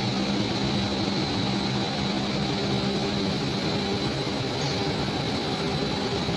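Fabric-processing machinery running: a steady, continuous drone with a low hum and a thin high whine.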